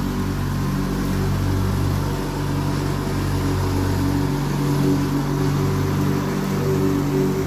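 Riding lawn mower's single small engine running steadily at an even speed.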